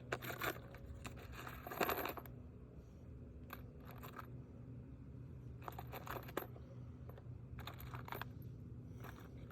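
Asphalt roof shingles being handled and shifted into place: a series of short scrapes and rustles a second or two apart, the loudest about two seconds in, over a low steady hum.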